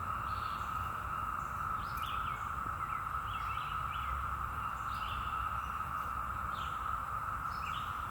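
Steady drone of a chorus of 17-year periodical cicadas, one unbroken even pitch, with short bird chirps repeating over it about once a second.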